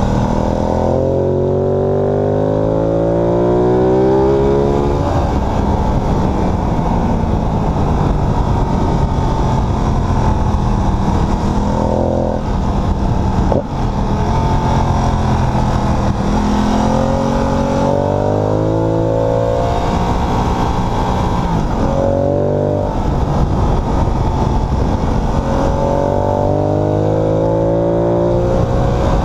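Ducati Multistrada 1200 S's 1198 cc L-twin engine heard from on board while riding, its pitch climbing as it accelerates and dropping back at each gear change, several times over.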